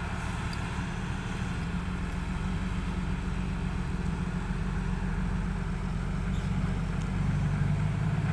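Six-wheel truck's engine running steadily, a low hum that grows a little louder about seven seconds in.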